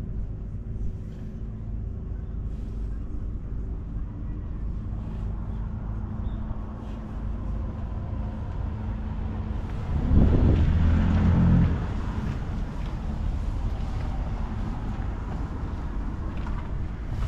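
An engine running steadily, with a louder, deeper spell of almost two seconds about ten seconds in.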